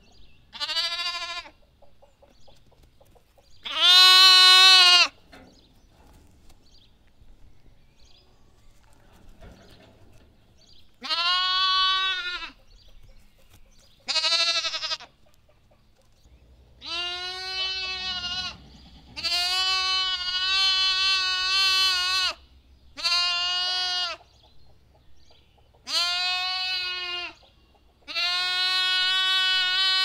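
A lamb bleating again and again, about nine separate bleats. Most are short, one runs about three seconds, and there is a longer pause after the loudest bleat near the start.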